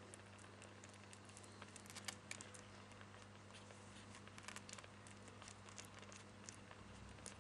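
Faint, irregular small clicks and smacks of nursing kittens suckling at their mother, over a steady low hum.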